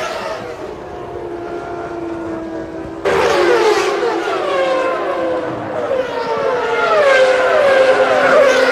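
1995 Formula One cars' 3-litre racing engines at high revs, the pitch falling slowly at first. About three seconds in the sound jumps louder and the engine note drops in a quick series of falling steps, the cars changing down through the gears under braking.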